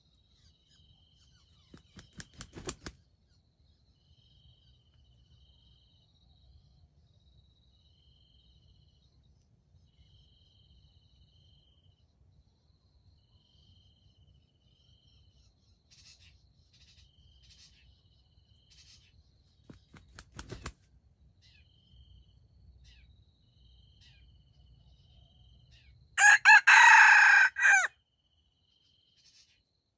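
A red junglefowl rooster crows once near the end, a short crow of about two seconds. Two brief bursts of clicks come earlier, and faint insects chirp in an even rhythm behind.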